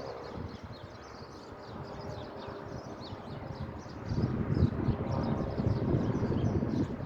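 Dogs eating their food, with rough feeding noise that grows louder about four seconds in.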